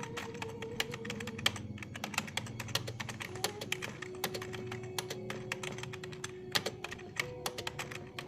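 Typing on a computer keyboard: a fast, irregular run of key clicks with a few louder strokes, over quiet background music.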